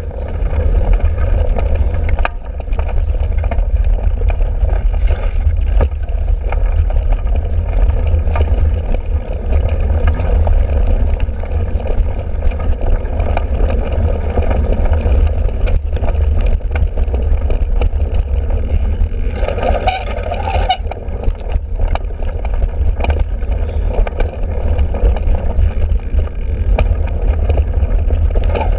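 Wind buffeting the microphone of a handlebar-mounted camera as a cyclocross bike rides over bumpy, muddy grass, with a steady low rumble and scattered knocks and rattles from the bike. A brief higher-pitched sound comes about twenty seconds in.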